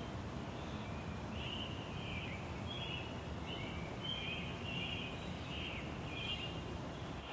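Outdoor ambience: a steady low background hum with several birds chirping and trilling throughout.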